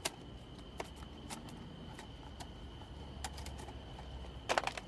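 Light ticks and crackles from a new pack of aluminum foil being handled and opened, with a quick cluster of crackles near the end.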